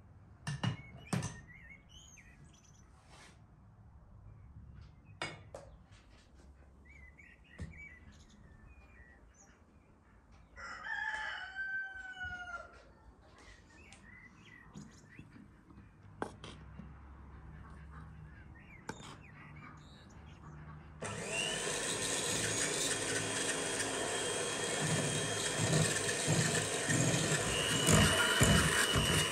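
A rooster crows once, about eleven seconds in. About two-thirds of the way through, an electric hand mixer switches on and runs steadily with a high whine, beating a cake mixture in a glass bowl; this is the loudest sound. A few sharp knocks come near the start.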